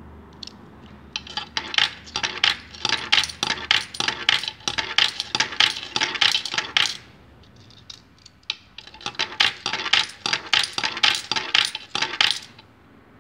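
Ten-dollar coins dropped one after another through a JY-922 coin acceptor and clinking onto a stack of coins caught in a palm beneath it. Rapid metallic clicks come in two runs of several seconds each, with a pause of about two seconds between.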